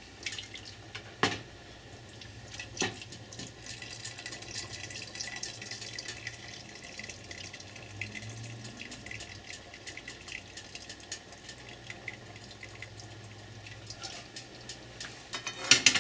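A ladle scooping chicken stock from a skillet and pouring it into a stockpot of soup: liquid splashing and trickling, with sharp clinks of the ladle against the metal pan about one and three seconds in and a quick run of clinks near the end.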